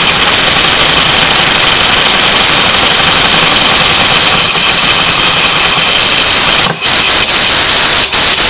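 Brass twin-cylinder vertical model steam engine running fast: a loud, steady hiss and high whine from its exhaust and spinning crank. It falters briefly near the end, then cuts off.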